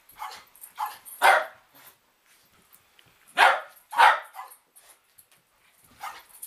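Dog barking during rough play: about six short, sharp barks in scattered bunches. The loudest come a little over a second in and twice more around three and a half to four seconds in.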